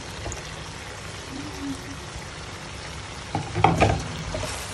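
Beef simmering in thick dark sauce in a wok, sizzling steadily as green beans, tomato wedges and onion slices are tipped in. A short, loud clatter about three and a half seconds in.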